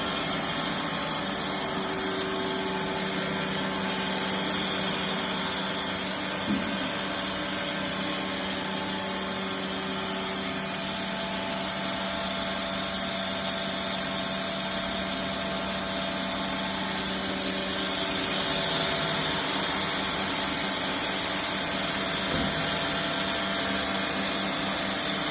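Drilling and tapping machine running steadily, a continuous mechanical hum. A low steady tone drops away about eighteen seconds in as the overall noise grows slightly louder, with a single short knock about six seconds in.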